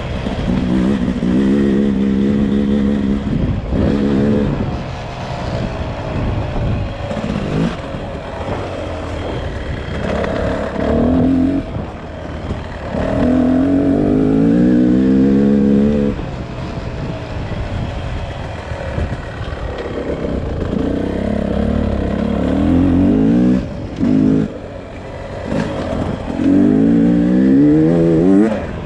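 Beta RR 300 single-cylinder two-stroke motorcycle engine revving under throttle, its pitch climbing and dropping again and again as the throttle is opened and shut, with brief dips where it comes off the throttle.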